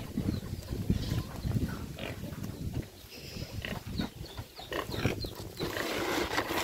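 Pigs grunting over and over in short, irregular calls, with a few higher squeals, the noise hungry pigs make until they are fed.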